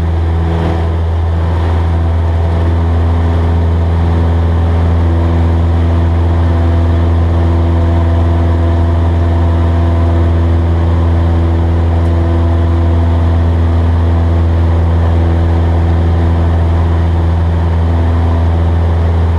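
Cessna 172S's four-cylinder Lycoming engine and propeller running at full power during the climb-out after a touch-and-go: a loud, steady drone.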